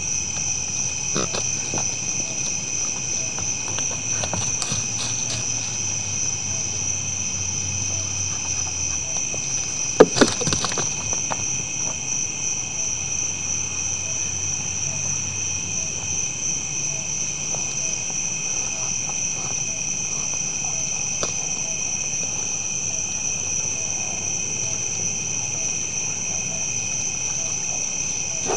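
Steady night insect chorus of crickets, several continuous high-pitched trilling bands, with a few faint clicks and one sharp knock about ten seconds in.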